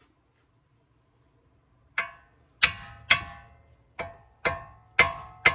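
Hammer blows on steel at the tie rod end seated in the steering knuckle, knocking the tapered stud loose. Seven sharp metallic strikes about half a second apart begin about two seconds in, each ringing briefly.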